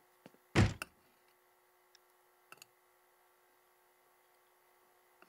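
A single dull thump about half a second in, then a couple of faint clicks; the rest is near silence with a faint steady hum.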